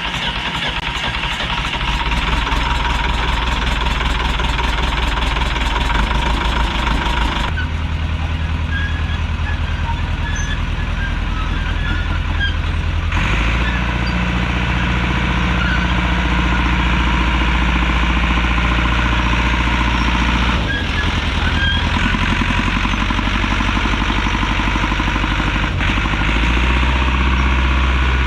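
A heavy engine running steadily, its speed and load shifting several times, with a brief dip about two-thirds of the way through.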